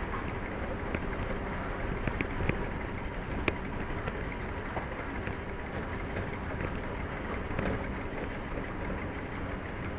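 Steady running noise heard inside the cab of a class 731 diesel locomotive on the move, with a few short sharp clicks scattered through it, the sharpest about three and a half seconds in.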